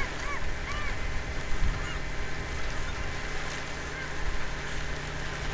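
Geese honking: a few short calls in the first second or so, then fainter ones, over a steady low hum and wind noise.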